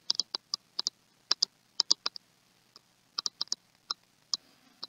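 Pen-type stylus tapping and clicking against a tablet screen while handwriting: an irregular run of short, sharp clicks, several a second, in uneven clusters.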